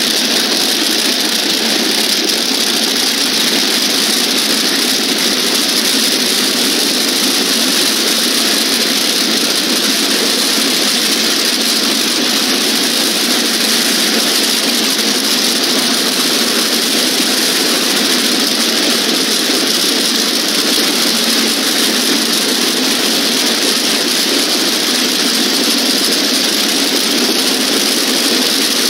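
A race car engine running steadily at idle, loud and unchanging throughout.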